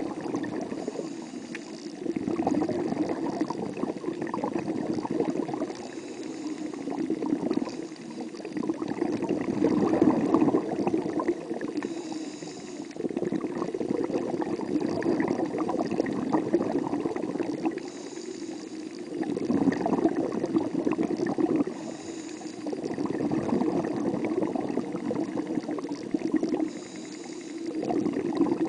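Muffled underwater water noise picked up by a camera submerged in the sea: a bubbling, sloshing wash that swells and fades every few seconds, with a brief hiss coming back about every five or six seconds.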